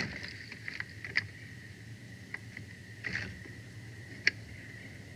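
An adult bald eagle shifting about its stick nest against the nest camera: scattered sharp ticks and clicks, with a brief rustle about three seconds in, as feathers brush the camera and sticks knock together. A steady faint high hum runs underneath.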